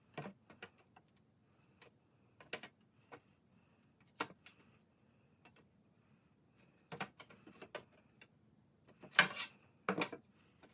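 Scattered light taps and clicks of a straight edge and a template being handled and laid down on a workbench during measuring, with a couple of brief scraping rustles near the end.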